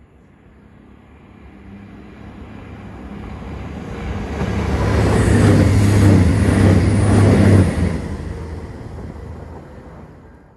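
CrossCountry diesel passenger train approaching at speed and passing directly beneath. It builds steadily to a loud rush with a low, steady engine hum, loudest about five to eight seconds in, then fades away fast as it goes under the bridge.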